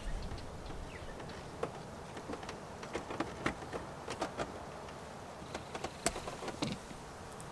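Light, irregular clicks and ticks of a socket on an extension being turned by hand, backing a long 7mm-head screw out of a plastic truck door panel.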